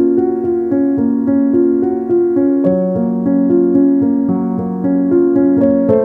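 Background piano music, with held notes and chords changing every half second or so.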